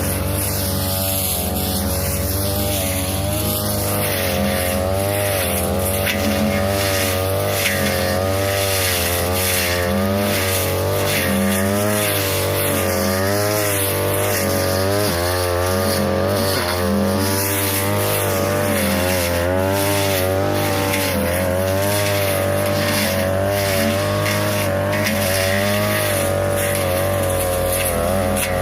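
42cc two-stroke brush cutter running hard, its engine pitch rising and dipping over and over as the blade cuts into tall grass and woody saplings. There are many short sharp ticks from the blade striking stems.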